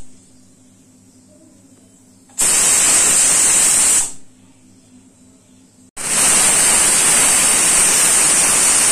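Aluminium pressure cooker whistling: steam blasts out under the lifted weight valve with a loud, hissing whistle, twice — once for about a second and a half a couple of seconds in, then again from about six seconds in, still going at the end. The whistle is the sign that full pressure has built up inside the cooker.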